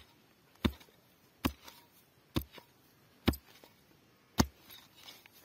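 Small hand pick-mattock chopping into grassy turf and soil: six sharp blows, about one a second.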